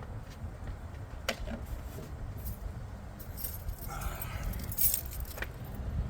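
A bunch of keys jangling, with scattered clicks and a brighter metallic jingle about four to five seconds in, over a low steady rumble.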